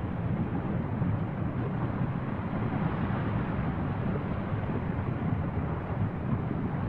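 Steady low rumble of an erupting volcanic vent as lava fountains and spatters from its cone, with no separate bursts standing out.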